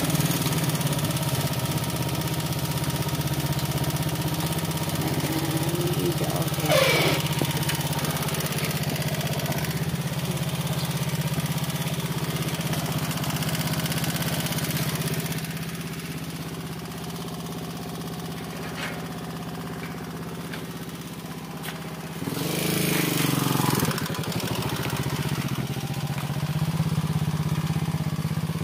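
Motorcycle tricycle's engine running steadily as it rides along, heard from the sidecar, easing off in the middle and picking up again near the end. A brief loud burst of noise cuts in a little past two-thirds through.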